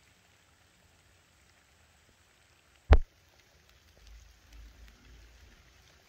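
Faint, steady rain, with one sharp, loud thump about three seconds in and a brief low rumble after it.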